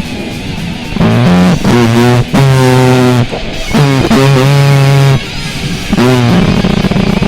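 Loud distorted noise music: a run of short held pitched notes, several sliding into pitch at their start, broken by brief gaps of hiss, ending in a steady distorted wash.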